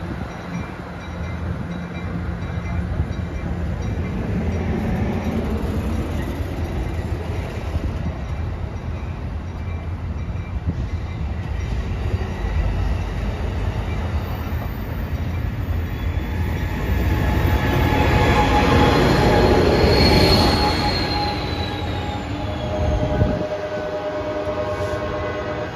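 Pacific Surfliner passenger train pulling out along the platform: a steady rumble of bilevel cars rolling on the rails. It builds to its loudest as the Siemens Charger diesel locomotive passes, about two-thirds of the way in, with a high wheel squeal rising and falling over it.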